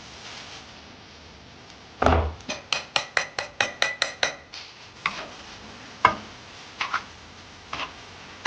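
Kitchen utensils clinking against dishes: a knock about two seconds in, then a quick run of about a dozen light, slightly ringing clinks, followed by a few scattered single clinks.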